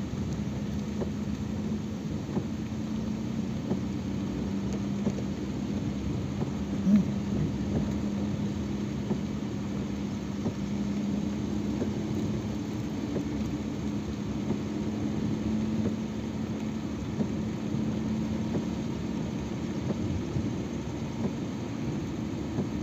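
Car driving on a wet road, heard from inside the cabin: a steady low rumble of tyres and engine with a droning hum. A brief knock about seven seconds in.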